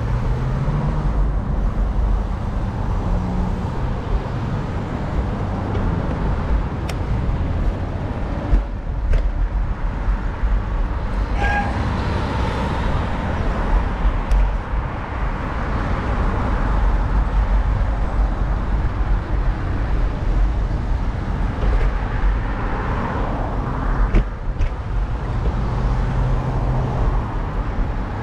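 City street traffic, cars and engines going by, heard from a moving bicycle over a steady low rumble. A brief beep sounds about eleven seconds in.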